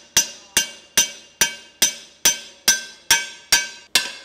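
A hammer striking the wall of a carbon steel skillet against a cast-iron swage block, in a steady rhythm of about ten ringing metallic blows, a little over two a second. The blows are planishing out the wrinkles the press left in the pan's wall.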